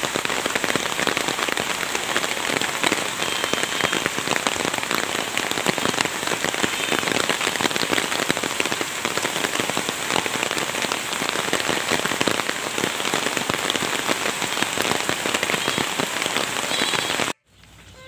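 Steady rain falling, a dense patter of raindrops close to the microphone, cutting off suddenly near the end.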